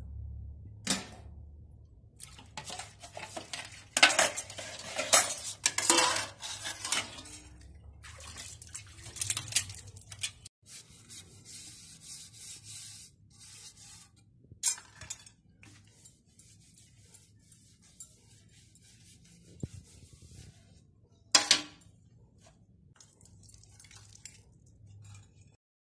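Stainless steel plates, pots and spoons washed by hand: metal dishware clattering and clinking together as it is scrubbed and stacked. The clatter is dense through the first ten seconds, then sparser scrubbing, with one sharp clank about 21 seconds in.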